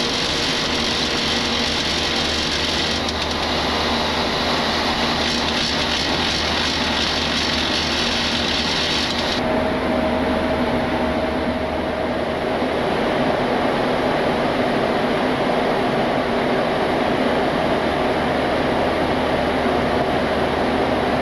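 Steady in-flight noise of a Boeing 737 jet airliner: engines and rushing airflow with a faint hum. About nine seconds in, the sound changes suddenly to a duller hum with the high hiss gone.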